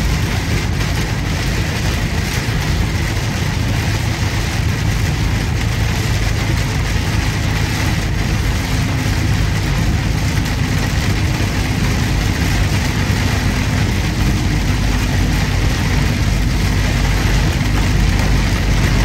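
Steady drone of a truck driving on a wet highway, heard from inside the cab: a low engine hum under an even hiss of tyres on the wet road.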